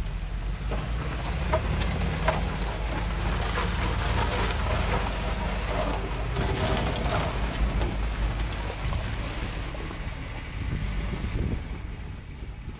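Heavy diesel earthmoving machinery running with a steady low engine drone. Scattered metallic clanks and short squeaks come through over the first eight seconds or so.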